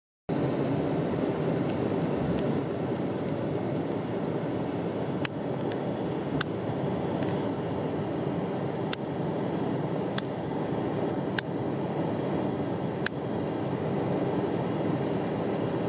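Steady rumble and hiss inside a car's cabin while it sits in slow traffic, with about half a dozen faint sharp clicks spread through the middle.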